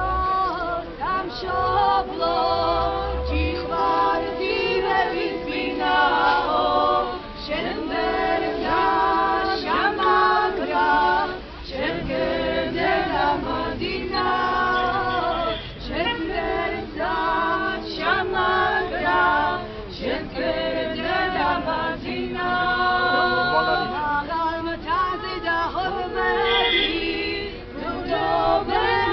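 A choir singing unaccompanied, with long held notes.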